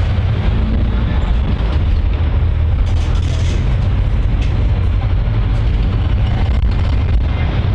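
Ride noise inside a moving public-transport vehicle: a steady low rumble of engine and road, with a few brief rattles and a background murmur of passengers' voices.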